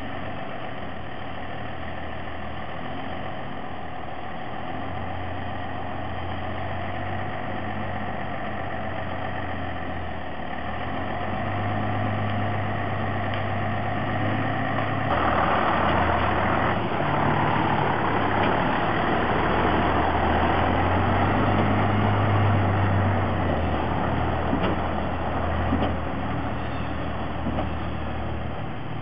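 A heavy work truck's engine running steadily, picking up and getting louder about halfway through as it comes under load.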